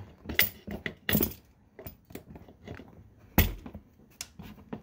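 Vice grips (locking pliers) being fitted and clamped onto the top of a front shock absorber shaft beside a ratcheting wrench: a series of short clicks and knocks, the loudest a little over three seconds in.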